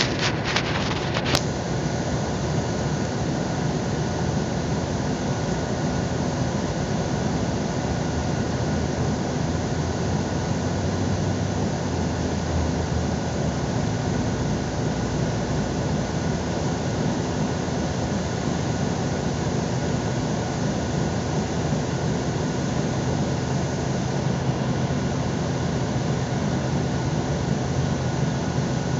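Mercedes-Benz city bus standing still with its engine idling, heard from inside the cabin: a steady low hum under an even hiss, with a faint steady whine. A few sharp clicks come in the first second or so.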